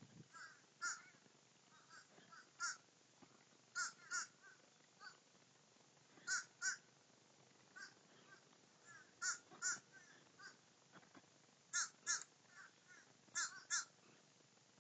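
Crows cawing: short, harsh caws, several in quick pairs, repeated every second or two.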